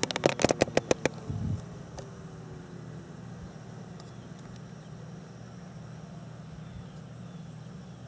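A quick run of loud clicks and knocks, with a low thump, in the first second or so. Under them the Federal Signal Thunderbolt 1000 civil-defense siren winds down at the end of its test: its tone slides slowly lower in pitch and fades out after about three seconds, over a steady low hum.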